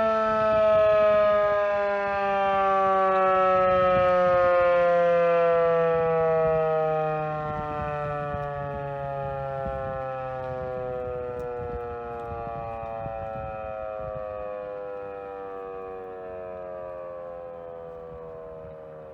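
Federal Signal 2001 tornado siren winding down at the end of its test: one steady tone with overtones, sliding slowly lower in pitch and fading away.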